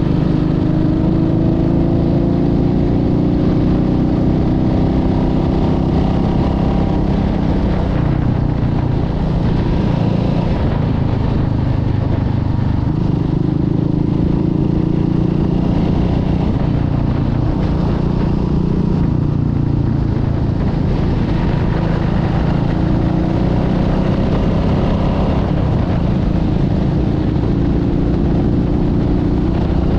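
Motorcycle engine running at road speed. Its pitch climbs steadily over the first several seconds as it accelerates, then holds fairly even with small rises and falls.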